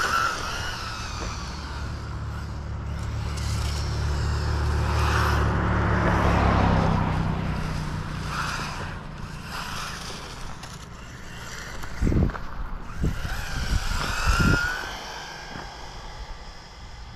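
MJX Hyper Go 1/14 RC rally car's electric motor whining in short bursts as it speeds up and slows over asphalt. A low rumble swells and fades over the first half, and several dull thumps come near the end.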